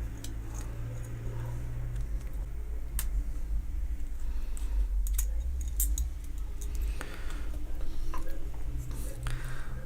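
Small clicks and light rattles of the plastic and metal parts of a magnetic starter being handled and fitted back together, its return spring and coil going into place, over a steady low hum.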